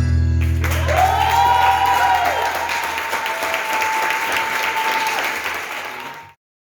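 Audience applauding as the final chord of the gato music fades away. A long, steady, high held note, a cheer or whistle from the crowd, rides over the clapping, and the sound cuts off suddenly near the end.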